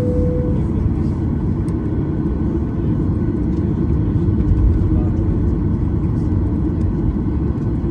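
Steady low rumble in the cabin of a Boeing 737-800 taxiing: its CFM56-7B engines at taxi power and the wheels rolling over the taxiway. A short steady tone sounds briefly right at the start.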